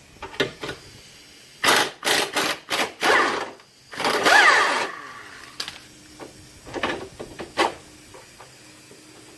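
Power tool run in several short bursts, then a longer run about four seconds in, with lighter clinks and clanks of metal tools after.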